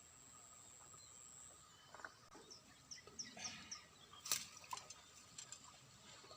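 Quiet outdoor ambience: a high, steady insect buzz that stops about a second and a half in, then a bird's quick run of four or five short chirps, and a single sharp click a little after the middle.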